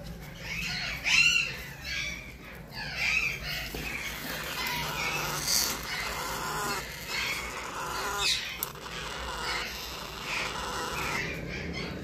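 Baby parrot chicks begging with short, repeated squawking calls while being hand-fed formula from a syringe, the loudest about a second in. A low steady hum runs underneath.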